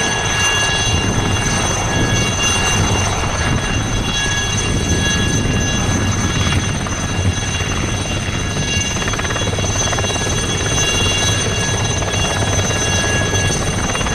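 Aérospatiale Alouette III helicopter in a low hover: a steady high whine of its Turbomeca Artouste turbine over the beat of the main rotor.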